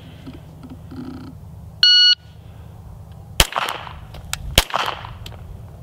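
A shot timer's start beep, then shots from a Canik Elite 9mm pistol, each followed by a ringing tail. The beep comes about two seconds in and lasts a moment; the shots follow about a second apart, three in all, the last right at the end.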